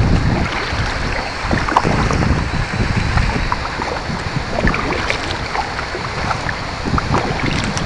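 Water splashing and trickling around a paddled homemade bamboo kayak, with many small scattered splashes and drips. Wind rumbles on the microphone underneath.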